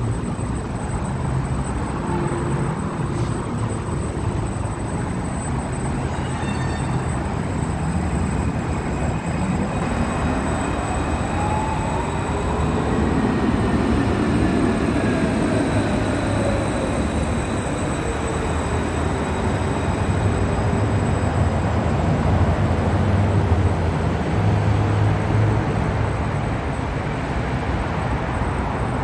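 Tram running through an underground stop: a steady rumble of wheels on rails, with the electric drive's whine rising and then falling in pitch about halfway through.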